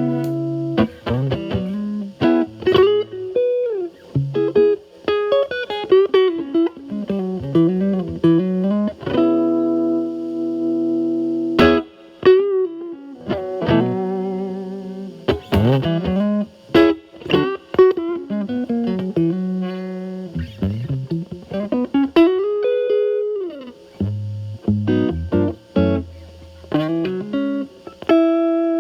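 Telecaster played through a Fender Pugilist distortion pedal (blend mode, Gain A channel only) into a Marshall Valvestate amp's clean channel: single-note lead licks with string bends and a held chord. The drive is turned up from about 9 to 10–11 on Gain A about eleven seconds in, after a short break.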